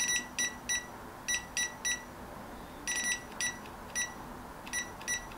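Digital control panel of a WALAPress 15x15 clamshell heat press beeping with each button press as the temperature setting is stepped. There are about a dozen short high beeps, coming in quick clusters of two or three.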